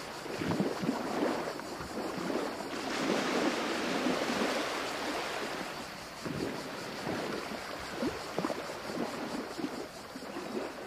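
Sea waves washing on a shore, a steady rush with uneven surges.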